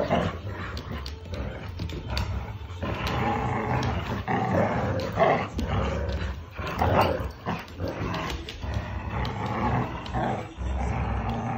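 Two dogs growling in play, in uneven rough bursts, as they tug against each other on a knotted rope toy.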